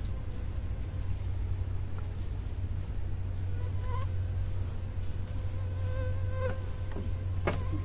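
Night insects trilling steadily in one high, even tone over a low steady hum, with a single sharp knock near the end.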